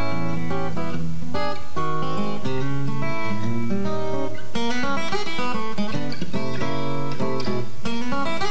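Guitar-led theme music with a plucked and strummed melody over a moving bass line; the arrangement grows fuller and brighter about halfway through.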